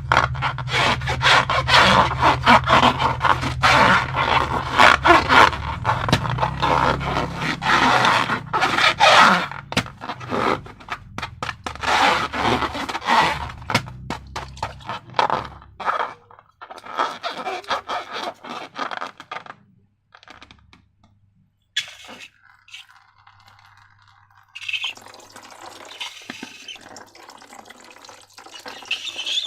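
Slime and balloon material being handled: a dense run of sticky crackling and scraping for roughly the first fifteen seconds, then sparser, quieter handling sounds with short gaps.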